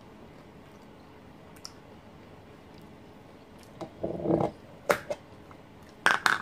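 A stainless steel flask's black screw lid being twisted off and set down on a tabletop: a brief scraping squeak, then a few sharp clicks and knocks.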